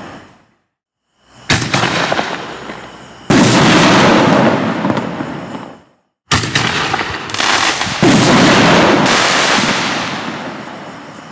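Black Cat Neon Diablo 24 five-inch aerial firework shells bursting one after another: four loud booms, each trailing off over a couple of seconds, with short silent gaps between some of them.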